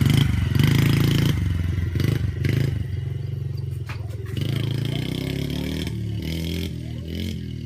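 Dirt bike engine revving in uneven bursts of throttle from a learner rider, then running steadier and growing fainter near the end.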